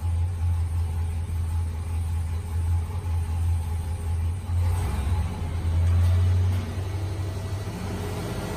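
Supercharged GM LT5 V8 running on an engine dyno with a steady low note. About five seconds in the revs rise for roughly two seconds, then fall back, and they begin to climb again near the end.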